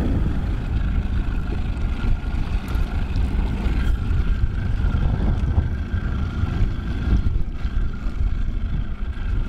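Mercury outboard motor running steadily at trolling speed, heard as a continuous low rumble with water noise and a faint steady whine.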